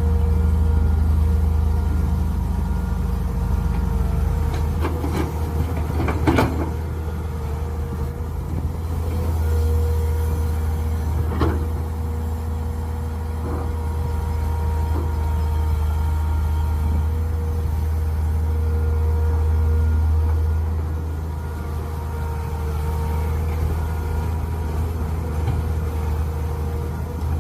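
Mini excavator engine running steadily while digging, its level swelling and easing slightly. Two sharp knocks come through, about six seconds in and again about eleven seconds in.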